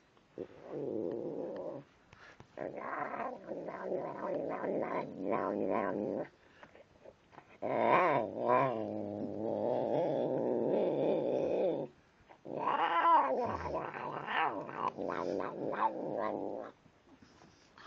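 Domestic cat growling and moaning as it eats dry food from a bowl. There are four long, wavering calls: a short one at the start, then three that last several seconds each.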